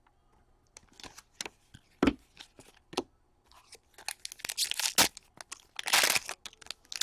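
Hockey card pack wrappers being torn open and crinkled by hand, with sharp clicks. The first second is quiet, then come a run of tears and crackles, the longest around five and six seconds in.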